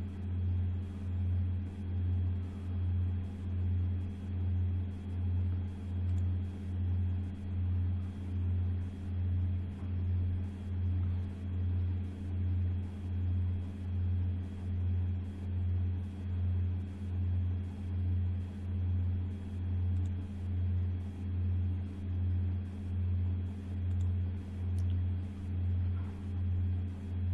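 A steady low background hum that swells and fades a little over once a second, with nothing else over it.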